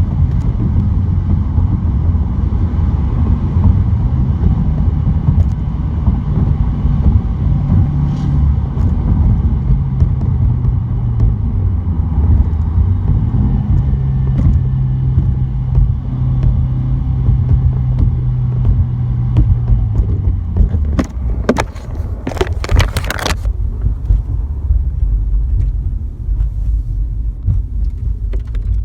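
2017 Subaru WRX's turbocharged 2.0 L flat-four driving at speed, heard muffled from inside the glove box over steady road rumble. The engine note rises and holds, then drops off about 20 seconds in, followed by a brief burst of sharp rattling clicks. This is a car whose high-boost rattle turned out to be a boost leak.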